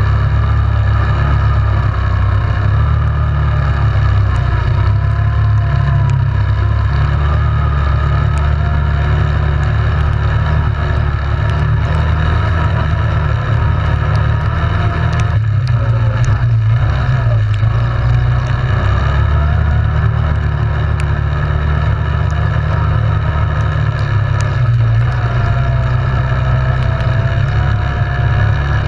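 Yamaha Grizzly 700 ATV's single-cylinder engine running steadily under way, with a heavy low rumble and a higher whine that drifts up and down as the throttle varies.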